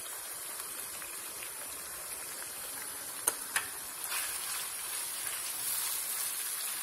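Beef mince in tomato sauce sizzling steadily in a non-stick frying pan. Two light clicks come a little past halfway, then a spatula stirs the mixture and the sizzle grows slightly louder.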